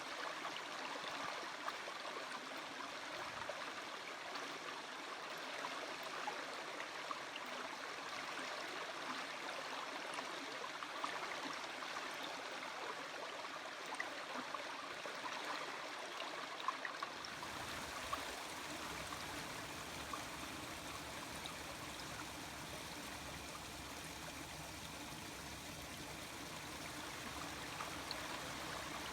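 Water of a stream flowing and trickling steadily, with small splashes. About seventeen seconds in the sound changes to a fuller, deeper rush of water.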